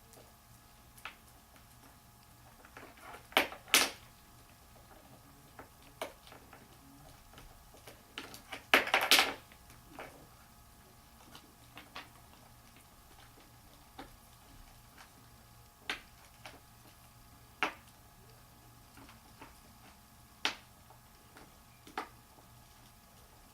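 Cockatiels playing, making scattered sharp taps and clicks. There are two louder clattering bursts, about three and a half seconds in and about nine seconds in.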